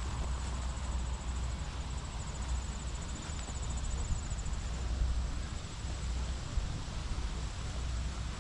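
Insects chirping outdoors in a steady, rapid high trill, over a low rumble of wind on the microphone.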